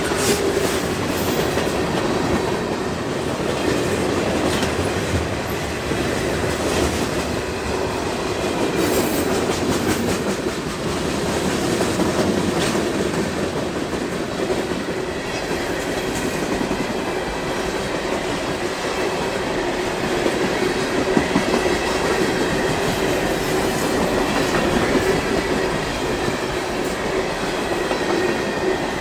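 Freight train's boxcars and refrigerator cars rolling past at steady speed: a continuous rumble with repeated wheel clicks on the rails.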